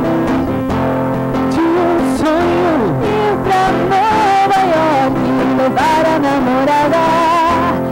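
A woman singing a song to a strummed acoustic guitar; at first only the guitar chords are heard, and the voice comes in about a second and a half in.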